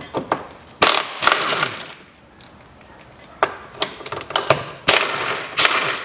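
Socket ratchet clicking in several quick bursts of strokes, with single clicks in between, as the bolt of a lower suspension control-arm bracket is undone.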